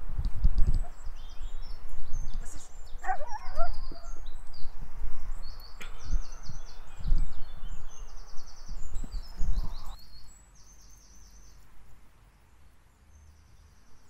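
Wind buffeting the microphone in low, gusty rumbles, with small birds chirping and twittering in short repeated phrases. About ten seconds in the wind rumble drops away sharply, leaving the birdsong.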